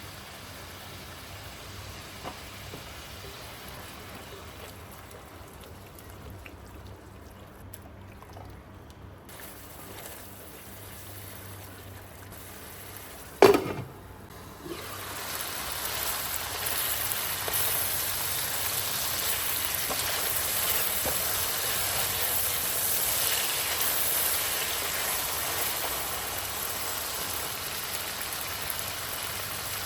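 A sharp clatter about halfway through, followed by food sizzling steadily in hot oil in a cooking pot.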